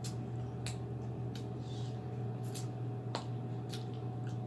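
Close-miked eating sounds: chewing with scattered sharp wet mouth clicks and lip smacks, over a steady low hum.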